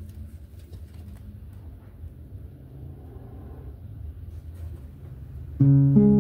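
Low steady background rumble with faint small clicks and rustles of a paper card being handled. Near the end, strummed acoustic guitar music comes in abruptly and much louder.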